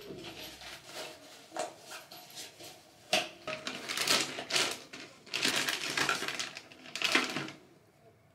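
Crinkling and rustling of a clear plastic zip-lock bag being handled. There are a few light rustles at first, then a run of loud crackling bursts from about three seconds in, which stop about half a second before the end.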